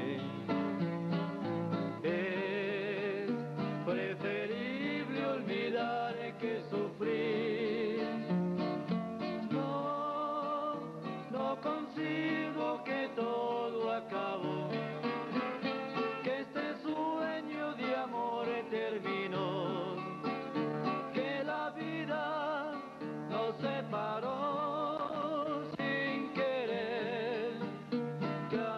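A male vocal duet singing a bolero with vibrato, accompanied by acoustic guitars.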